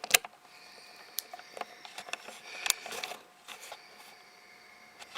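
Handling noise from fiddling with a microphone and its cable: one sharp click just after the start, then scattered small clicks and rustles.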